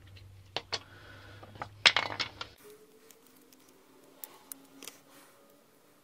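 Small plastic clicks and clatter from handling a plastic inline switch housing as its cover and base are worked apart: a few sharp clicks, a cluster about two seconds in, then a few lighter ticks. A low hum underneath stops suddenly partway through.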